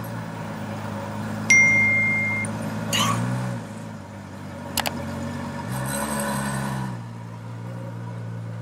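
Ferrari Monza SP1's 6.5-litre V12 idling, with a brief rise in revs about three seconds in and a longer, gentle one about six seconds in. A short, high electronic tone sounds about one and a half seconds in.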